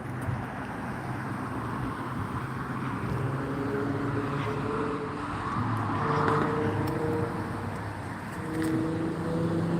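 Road traffic: car engines running, a steady low hum whose engine tones shift in pitch a few times as vehicles move.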